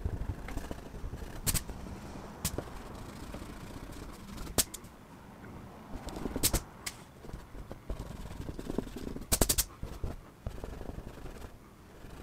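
A hand rubbing and handling a sheet of drawing paper taped to a cardboard board, a low rustling rumble broken by several sharp clicks and a quick rattle of clicks about nine seconds in.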